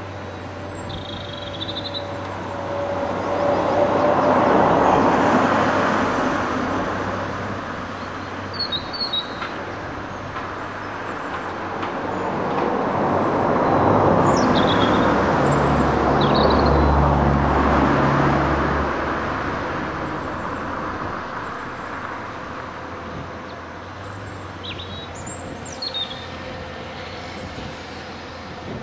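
Rubbish sliding out of a tipped dump truck body, heard as two long swells of rushing noise, the second one about twelve seconds in. Diesel engines idle underneath with a low hum that grows stronger during the second tip. Birds chirp several times.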